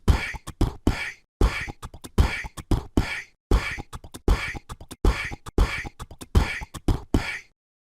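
Rhythmic beatboxing-style vocal percussion, a steady beat of sharp mouth-made hits about two to three a second, cutting off abruptly near the end.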